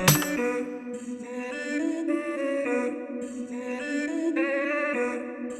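Background music: the drum beat cuts out at the start, leaving a slow melody of held notes, with no drums or bass, that sounds like singing or humming.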